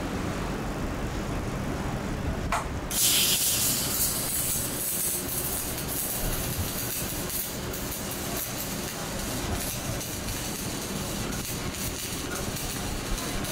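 Electric arc welding: an even sizzling hiss that strikes up suddenly about three seconds in, loudest just after it starts, then holds steady over a low rumble.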